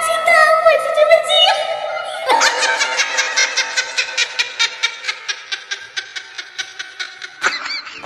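Laughter: after a short voiced stretch, a rapid even string of short giggles, about five a second, over steady music tones, cutting off near the end.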